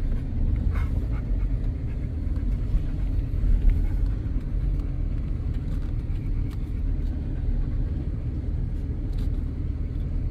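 Off-road vehicle crawling at low speed over a rough, washed-out dirt trail: a steady low rumble of engine and tyres, with scattered faint clicks and rattles.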